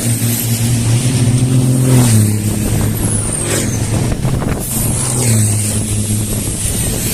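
Fórmula Truck racing trucks' engines running loud, the engine note dropping about two seconds in and again past five seconds, with a high whistle sweeping down near the middle.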